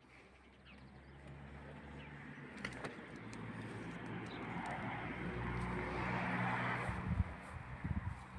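A vehicle engine running, growing steadily louder over several seconds and easing off near the end, with a few clicks and knocks.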